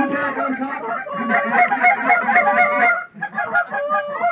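Rapid, overlapping Canada goose honks and clucks, many short calls a second, easing briefly about three seconds in before picking up again.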